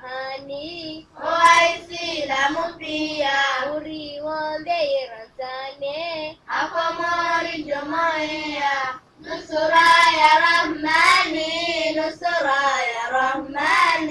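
A high solo voice singing a Ramadan song in drawn-out, wavering phrases, with short breaks between them and no instruments heard.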